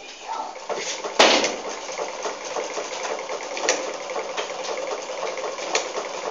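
Electric sewing machine: a sharp click about a second in, then the machine running steadily with a faint regular clatter.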